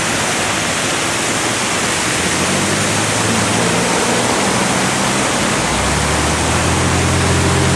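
Water pouring steadily over a stone millpond spillway, a constant rushing. From about six seconds in, the low hum of a vehicle's engine rises underneath it.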